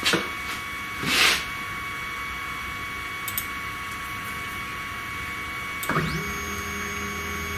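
A faint steady high whine, a click, and a short rustle about a second in. About six seconds in, the 3018 CNC router's stepper motor starts jogging the Y-axis bed at 500 mm per minute: its pitch rises briefly, then holds as a steady, quiet whine.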